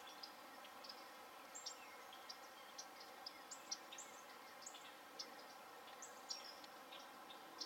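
Faint outdoor ambience of small birds chirping: short, high chirps and downward-sliding calls scattered irregularly, over a low steady hiss.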